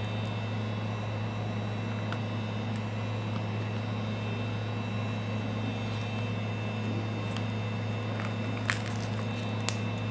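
Heat gun running with a steady hum and airy hiss. Two small sharp clicks near the end.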